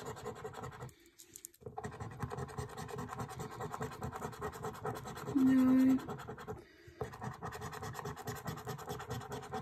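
Edge of a coin scraping the scratch-off coating from a paper scratchcard in quick, rough strokes. It pauses briefly about a second in and again around seven seconds.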